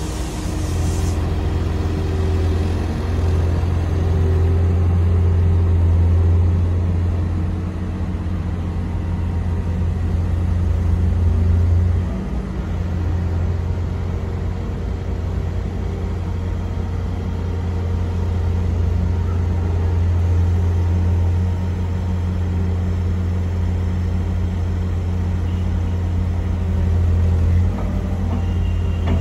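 Diesel engine of a Hamm 3412 single-drum road roller running steadily as the roller drives slowly, a loud low note that eases off briefly about twelve seconds in and again near the end.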